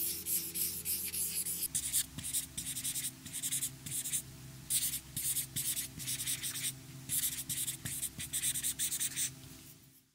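A marker scratching across a drawing surface in quick strokes with short pauses, as a cloud outline and hand lettering are drawn, over a low steady hum. The strokes fade out near the end.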